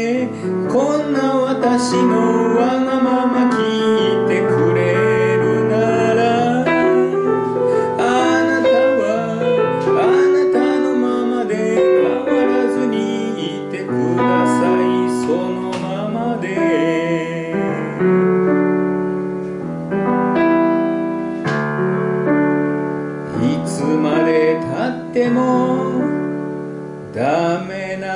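A woman singing a folk-style song into a microphone, accompanied by piano.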